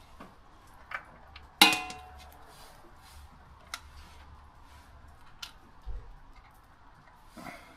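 Small metal parts being handled, with scattered light clicks and knocks and one sharp metallic clink about a second and a half in that rings briefly.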